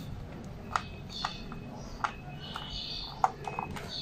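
Scattered sharp clicks and taps, at uneven intervals, from hands and a tool working on the underside of a ThinkPad T61 laptop to open it. Faint high squeaks come in between.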